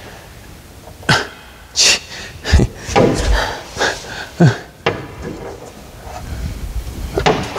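A series of short knocks and scrapes as a car's hood is forced up higher by hand, most of them in the first few seconds.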